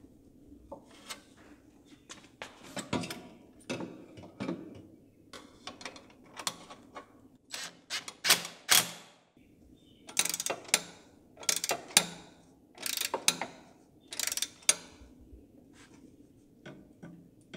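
Socket ratchet clicking in short runs, tightening the bolts that fasten a turbo hot-side pipe flange under the car.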